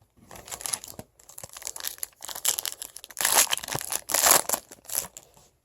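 Crinkling and tearing of a trading-card pack wrapper as a pack of 2014 Bowman Chrome cards is torn open and handled, in irregular rustling bursts that are loudest a little past the middle.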